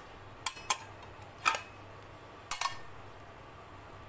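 Stainless-steel bowl and plate clinking against each other, about four sharp clinks with a brief metallic ring, the last one doubled.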